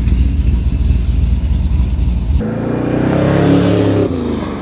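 The 1979 Corvette's L82 350 V8, fitted with Hooker headers, gives a deep, steady rumble. About two and a half seconds in, a rev rises and then falls in pitch as the car pulls away, and the sound fades near the end.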